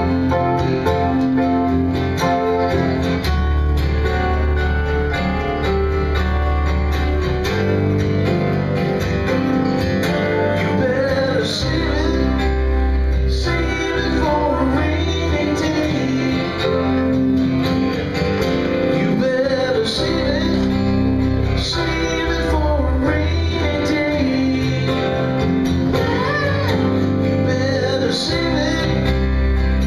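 Live acoustic guitar and Kurzweil keyboard playing a soft pop song together.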